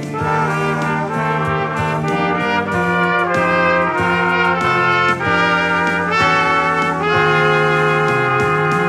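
Three trumpets playing together in harmony, a trumpet trio with sustained, moving chords.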